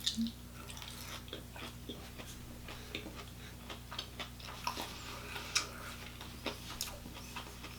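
Close-up chewing: scattered soft wet clicks and smacks of a mouth eating food, over a faint steady electrical hum.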